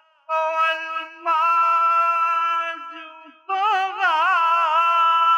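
Naat singing without words: a voice holds long notes with vibrato over a steady low drone, after a short pause at the start. About three and a half seconds in it breaks into a quick wavering run before settling on a held note.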